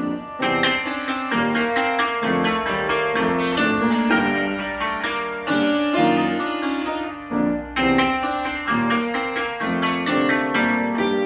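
Cimbalom played with hammers: a quick, continuous run of struck notes that ring on, with a few longer sustained notes about halfway through.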